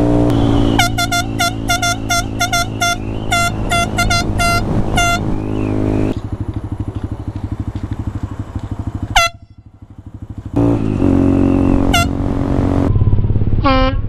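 Handlebar-mounted aerosol air horn blasted in a quick series of about a dozen short honks, then single honks about nine and twelve seconds in and a lower-pitched honk near the end. A small motorcycle's engine runs underneath and drops away briefly after the ninth-second honk.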